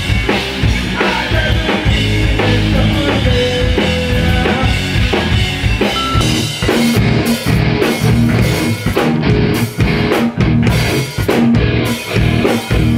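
Loud rock music from a full band: drum kit, electric bass and electric guitar playing together with a steady beat.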